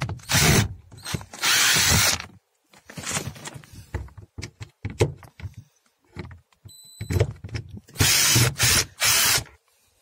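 Cordless drill/driver with a socket adapter spinning out the self-tapping screws of a car's inner door trim panel, running in several short bursts with clicks and knocks of handling between them.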